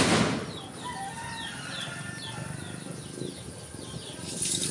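Small birds chirping over and over in short, high, falling notes, with one loud sharp crack at the start and a brief hiss-like burst near the end.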